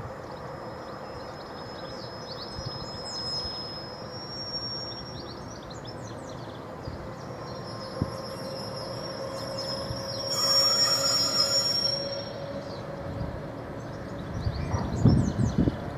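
Two Class 66 diesel locomotives, with two-stroke EMD V12 engines, approach under power with a steady engine note. About ten seconds in there is a loud high-pitched burst of wheel flange squeal, and near the end there are louder low thuds. Birds chirp in the background.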